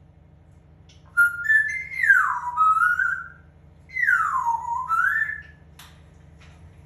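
African grey parrot whistling two phrases, starting about one and four seconds in; each has a downward-sliding whistle followed by a rising note. A few faint clicks near the end.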